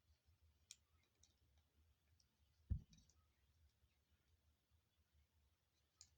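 Faint, scattered small clicks of a driver and knife parts being handled during reassembly, with one dull thump about two and a half seconds in.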